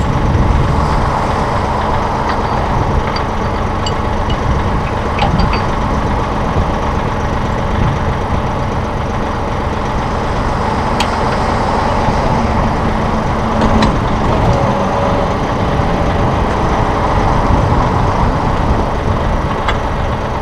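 Massey Ferguson 1742 compact tractor's diesel engine idling steadily, with a few light metal clinks as backhoe mounting pins are put in.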